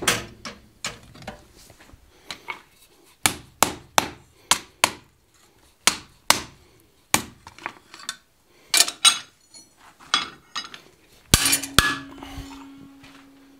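Irregular sharp metallic strikes and clanks of a blacksmith's hammer and tools on the anvil and steel bar, working a hot-chisel cut through the bar. The hardest strikes come near the end and leave a steady ringing tone.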